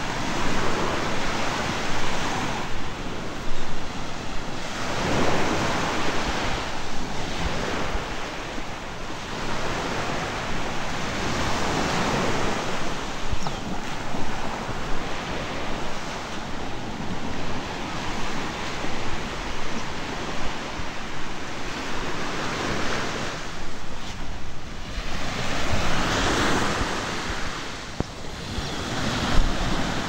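Small waves breaking and washing up a sandy shore, swelling every few seconds, with wind rumbling on the microphone.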